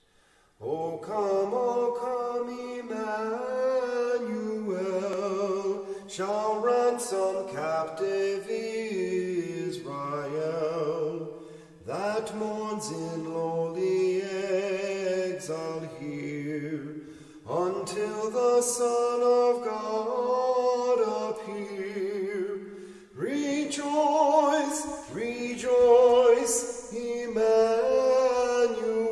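Unaccompanied voices singing slowly in phrases of about five to six seconds, five phrases in all, with short breaks between them.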